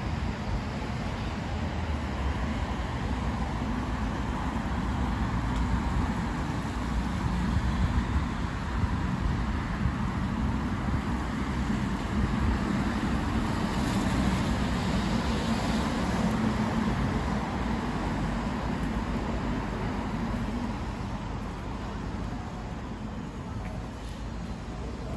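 Road traffic on a city street: a steady noise of cars going by, a little louder in the middle and easing off near the end.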